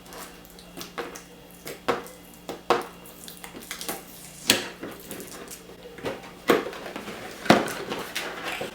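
A hair dryer's cardboard box and plastic packaging being opened and handled: irregular clicks, taps and knocks, with a few sharper knocks in the second half.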